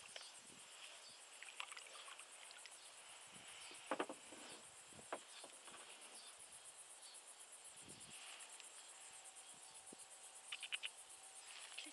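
Faint, steady high-pitched insect chorus from the marsh, with a few soft knocks and water sounds from the kayak. The loudest pair of knocks comes about four seconds in, and a short cluster comes near the end.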